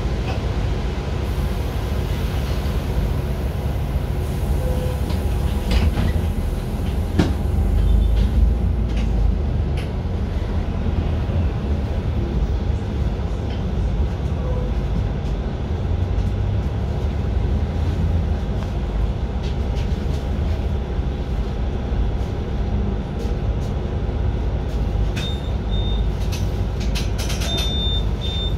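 Inside a city bus: the engine's steady low rumble fills the cabin, with light rattles and clicks from the bodywork. A few short high beeps sound near the end.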